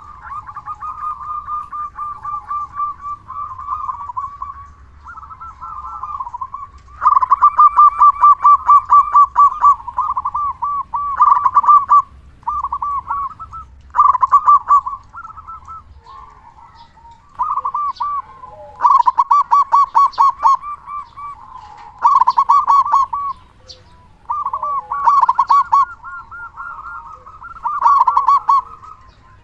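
Local zebra dove (perkutut) in full song, giving its loud rolling coo again and again: quick stuttering runs of pulses, one to three seconds each, with short pauses between. The call is a 'gacor' perkutut singing freely, the kind used as a lure to set other perkutut calling.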